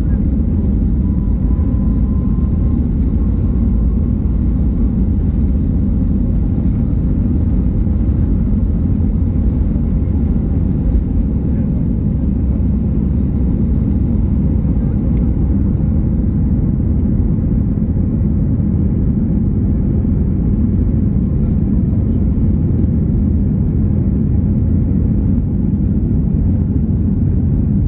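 Boeing 737 MAX cabin noise during takeoff, heard from a window seat over the wing: the CFM LEAP-1B engines at takeoff thrust with a steady deep rumble through the takeoff run and liftoff.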